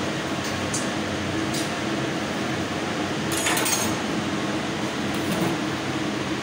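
CNC laser cutting machine running with a steady mechanical hum and fan noise, with a few light metallic clinks, the loudest about halfway through.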